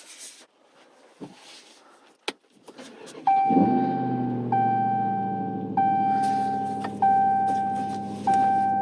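A few faint clicks, then about three seconds in the Hellcat Redeye's supercharged 6.2-litre Hemi V8 fires on a cold start and settles into a steady idle. A warning chime dings repeatedly over it, about once every 1.2 seconds.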